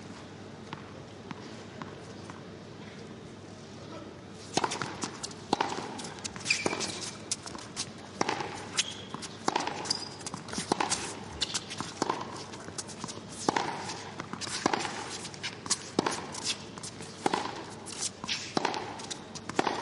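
Tennis point being played: after a few seconds of quiet, sharp racket strikes and ball bounces on the court follow one another about every half second to a second in a steady back-and-forth rally.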